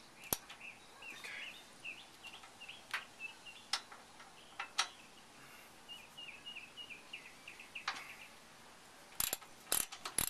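Hand ratchet wrench working a side-step mounting bolt: a few single clicks spaced well apart, then a quick run of ratchet clicks near the end. Birds chirp faintly in the background.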